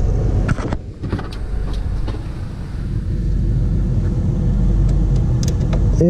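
Ford truck V8 engine idling steadily, with a few short clicks and knocks over it.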